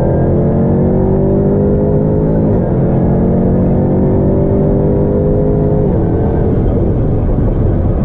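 Sports car engines at full throttle in a high-speed roll race. The engine note climbs steadily in pitch and drops sharply at an upshift about two and a half seconds in and again about six seconds in.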